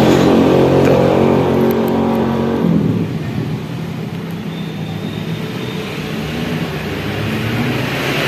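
Road traffic passing close by: a vehicle's engine runs steadily, then fades about three seconds in, and another vehicle draws near toward the end.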